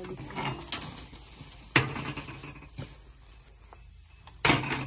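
Steady high-pitched shrilling of insects, typical of crickets. Sharp clicks stand out about two seconds in and again near the end.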